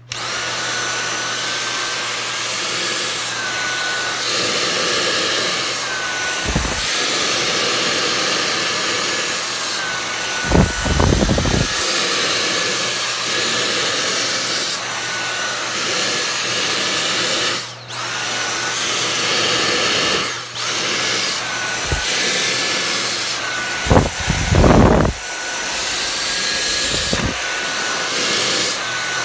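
Dyson cordless vacuum with a brush attachment, switched on at the start and running on a cat's fur. Its high whine dips and rises in pitch again and again as the brush head is pressed in and lifted off. A few dull bumps come from the head against the fur and the leather chair, loudest about ten to twelve seconds in and around twenty-five seconds.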